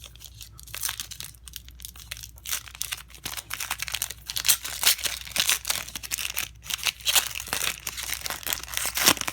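Basketball trading card pack wrappers being torn open and crinkled by hand, an irregular crackling and rustling that gets busier and louder after the first couple of seconds.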